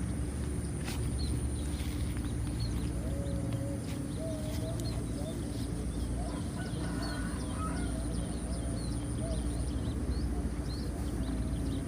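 Outdoor birdsong: many short, repeated high chirps, joined from about three seconds in by a lower wavering call that carries on until near the end. A steady high-pitched hum and a low rumble sit underneath.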